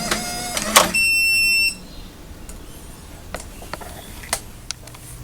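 Electronic keypad deadbolt's small motor whirring briefly to throw the bolt, ending in a click, followed by one long electronic beep. A few faint clicks and taps follow.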